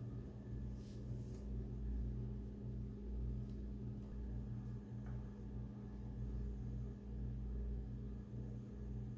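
A steady low mechanical hum, with a few faint ticks scattered through it.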